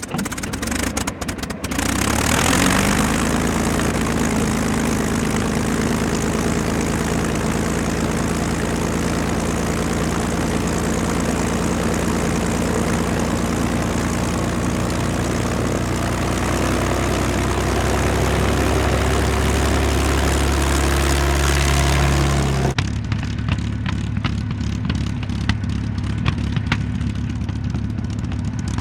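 Piston aircraft engine starting after a few clicks, catching about two seconds in and running steadily, its pitch creeping slowly upward. About 23 seconds in it cuts abruptly to a lower, rougher-running engine with frequent ticking.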